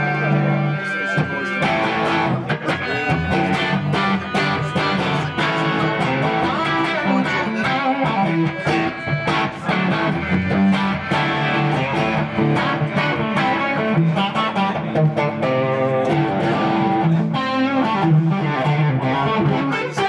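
Electric guitar with TV Jones Classic pickups played through a Soldano amp. A chord rings out, then about a second and a half in the playing breaks into a long run of quick single-note lead lines.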